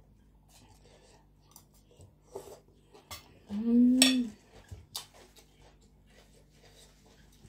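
Eating at a table: light clicks of a fork and food on a china plate, and small chewing noises. About three and a half seconds in comes a short closed-mouth hum, "mmm", the loudest sound.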